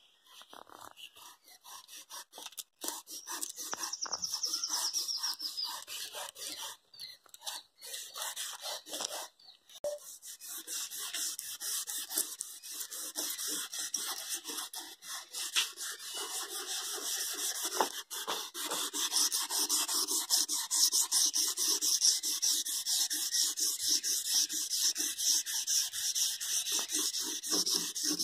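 Aluminium foil scrubbed quickly back and forth, wet, over the rusted chrome trim ring of a car tail lamp, a fast rasping rub that starts faint and grows louder. The foil is reacting with and rubbing off the rust on the chrome.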